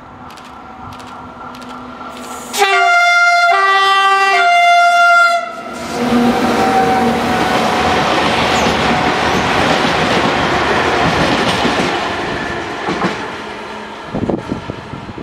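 SNCF electric locomotive sounding its two-tone horn, the two notes alternating for about three seconds, then the locomotive and its freight train of flat wagons passing with a long rumble of wheels on rails that fades away, with a few wheel clicks near the end.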